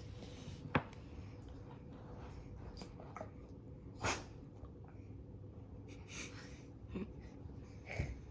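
A short, sharp sneeze about four seconds in, among quieter snuffling breaths, with a sharp click just under a second in.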